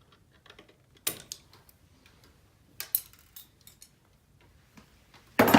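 Sharp metallic clicks and snips of hand wire cutters cutting and trimming a thin doorbell wire, a few separate clicks about a second apart. Near the end comes a louder half-second burst of noise.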